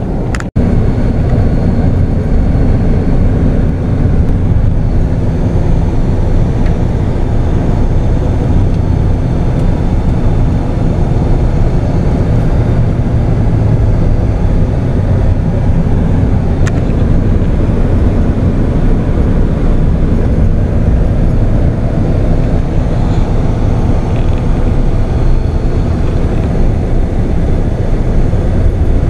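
Steady rumble of road and engine noise inside a pickup truck's cab at driving speed, cutting out briefly about half a second in.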